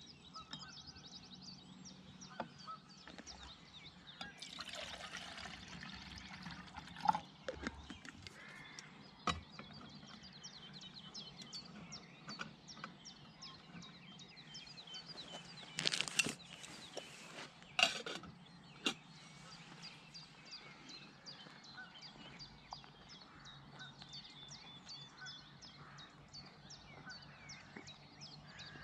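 Birds singing while a small brass spirit stove and a metal pot are handled on a wooden bench: a few sharp metal clinks and knocks, the loudest two a little past the middle.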